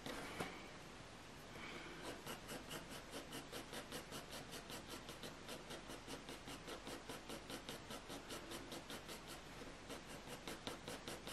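Graphite pencil shading on hot-press watercolour paper: quick, even back-and-forth scratching strokes, about four or five a second, after a short lull near the start.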